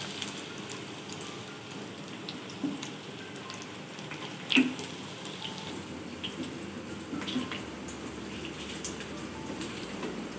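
Cooking oil sizzling in a wok with scattered small pops and crackles, the oil left after frying cauliflower until half done. A single sharp knock sounds about four and a half seconds in, along with smaller taps as the spatula lifts the cauliflower out.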